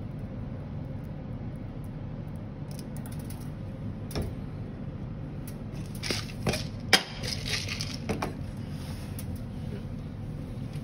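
A few sharp knocks and clatters of things being handled and set down on a stainless steel counter, clustered in the second half with the loudest about seven seconds in, over a steady low hum.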